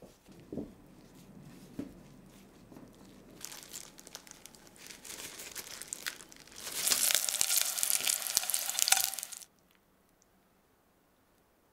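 Hard baked salt-and-flour dough crust being cracked and broken apart by hand: dry crackling and crunching that grows louder for about three seconds and then stops abruptly.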